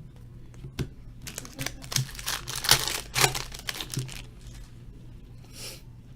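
A Topps Chrome Jumbo pack's wrapper torn open and crinkled by hand: a flurry of crackling from about one second in until about four seconds, then one short rustle near the end.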